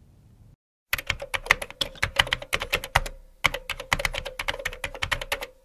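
Rapid typing on a computer keyboard, quick keystroke clicks starting about a second in, with a brief pause about three seconds in, over a faint steady tone.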